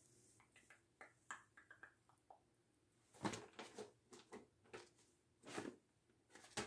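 Near-silent room tone broken by scattered faint clicks and taps: a cluster of very small ones in the first couple of seconds, then a few louder taps from about three seconds in.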